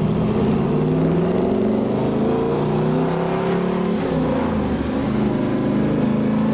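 A 1969 Camaro Z/28's 302 V8 pulling under acceleration. Its pitch climbs, drops a little past halfway as with a gear change, then climbs again.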